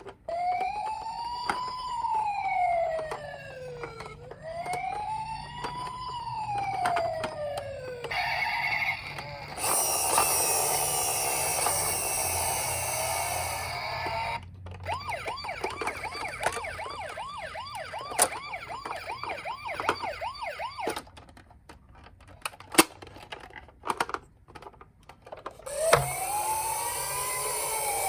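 Electronic sirens of toy emergency vehicles. A slow wail rises and falls about every four seconds, then comes a harsh noisy sound effect, then a fast warbling yelp. Scattered clicks and knocks follow, and the wail starts again near the end.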